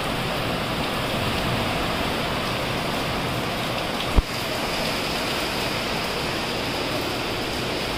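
Heavy rain pouring steadily outside, a dense even hiss of rainfall. A single sharp click cuts through it about four seconds in.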